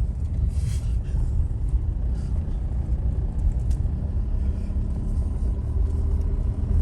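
Steady low rumble of a car driving, engine and tyre noise, with a few brief hissy rattles about half a second to a second in.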